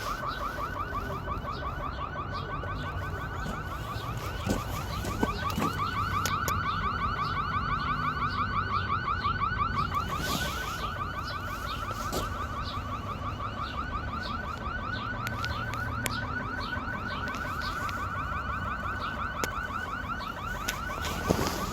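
Electronic alarm sounding a fast, high-pitched warble, about ten rising chirps a second. It goes on steadily and stops near the end.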